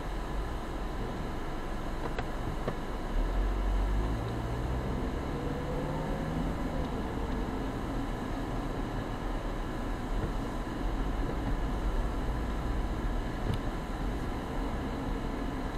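Car engine and road noise heard from inside the cabin. The engine note rises between about four and seven seconds in as the car accelerates.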